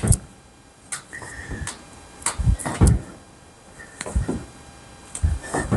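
Sports shoes thumping and squeaking on a wooden floor as a table tennis player shadows the forehand drive, pushing off and shifting her weight from foot to foot. The thuds come every second or so, several in quick pairs, with a short squeak about a second in.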